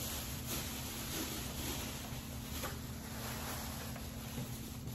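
Faint rustling of plastic shopping bags being rummaged through, over a steady low hum and hiss.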